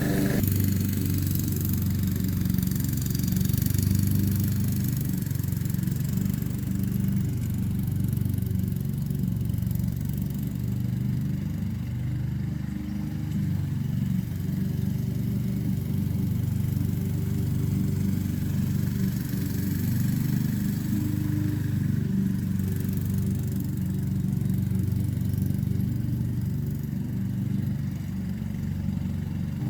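Honda HRX217 walk-behind lawn mower engine running steadily at an even speed.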